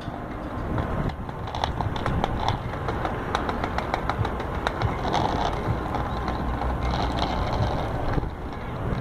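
A child's small bicycle with training wheels rolling over wooden deck planks, the wheels clicking and rattling across the plank joints over a steady low rumble. The clicking thins out near the end as the bike reaches smooth pavement.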